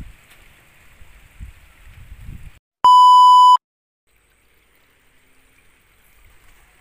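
A loud electronic beep: one steady high tone lasting under a second, about three seconds in, added in editing. Before it there is a faint low rumble on the microphone, and after it the sound drops away almost to silence.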